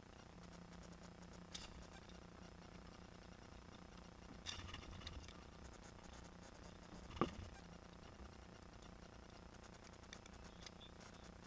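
Bow shots and bowfishing arrows striking the water: three short sounds over a faint steady hum, the sharpest a knock about seven seconds in.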